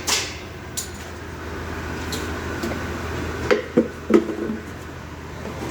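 A few scattered sharp metallic clinks and knocks, like tools or parts being handled, with a cluster of three about three and a half to four seconds in, over a steady low hum.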